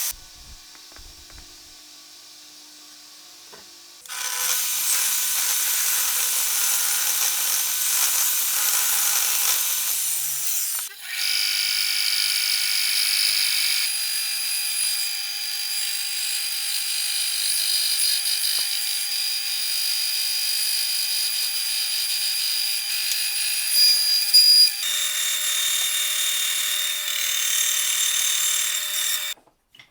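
Electric power tools running on wood in a series of separate stretches: after a quiet start, one tool runs and winds down, then another runs steadily with a high whine for most of the rest before cutting off abruptly near the end.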